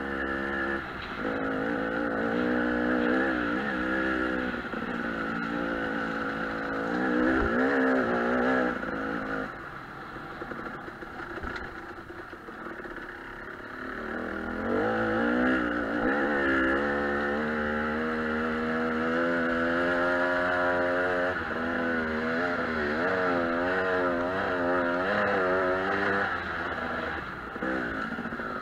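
Dirt bike engine, heard from on the bike, revving up and down over a rough trail, its pitch rising and falling with the throttle. It eases to a lower, quieter run around ten to fourteen seconds in, then picks up again.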